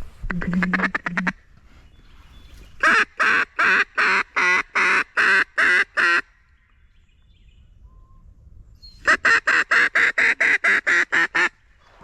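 Mallard duck call blown by a hunter: a short quick burst of quacks, then two long strings of evenly spaced loud quacks, the last one faster, calling to ducks over decoys.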